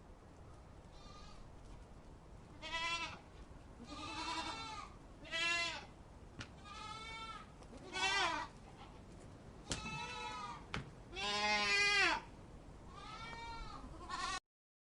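Goats bleating: a series of about nine wavering, quavering calls, with the longest and loudest one past the middle, then it stops abruptly near the end.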